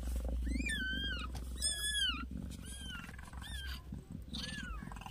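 Newborn kitten crying in about five thin, high-pitched mews, each rising then falling, with a low steady rumble underneath.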